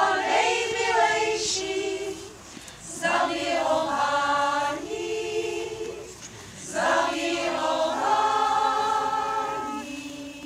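Women's folk choir singing a folk song unaccompanied, in three long phrases of held notes with short breaths between them.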